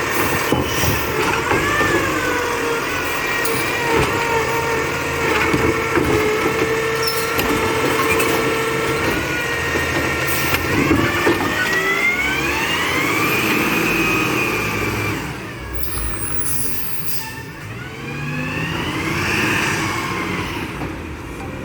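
Labrie Expert 2000 recycling truck running, with a steady whine through the first half, then whines that climb in pitch about halfway through and rise and fall again near the end.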